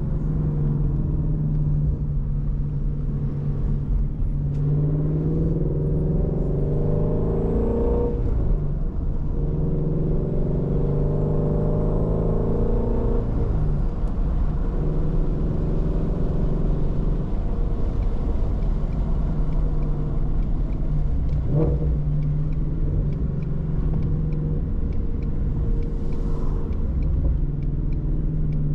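Shelby GT350's 5.2-litre flat-plane-crank V8 running under way, the rumble steady for most of the drive. The engine note rises twice as the car accelerates, about four seconds in and again about nine seconds in.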